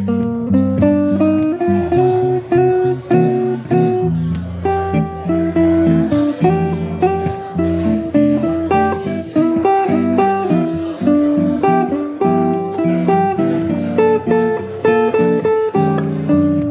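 Archtop hollow-body electric guitar played through an amp, a steady stream of plucked chords and single notes over a moving bass line.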